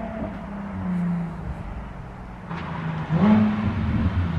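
Nissan 370Z Nismo's VQ V6 running with the muffler deleted, a deep exhaust note. About three seconds in it revs up and the pitch rises as the car accelerates toward the listener.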